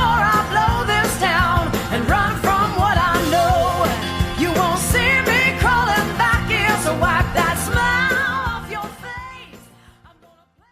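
Pop-rock song with a wordless sung vocal line over a steady beat and bass, fading out over the last two or three seconds.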